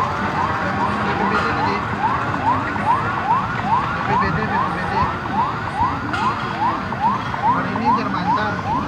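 A siren in a fast yelp, its pitch rising in quick sweeps about three times a second, over a low rumble.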